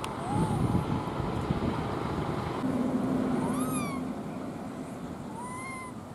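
Rhesus macaque coo calls: three short, meow-like calls that rise and fall in pitch, spread over several seconds, the middle one loudest, over a steady low rumble of background noise.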